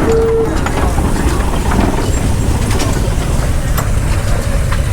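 A steam whistle's steady tone cuts off about half a second in, leaving a loud low rumble with scattered sharp clicks.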